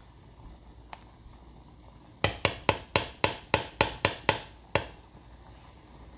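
Plastic ladle tapped against a metal cooking pot, about a dozen quick, sharp taps over roughly two and a half seconds.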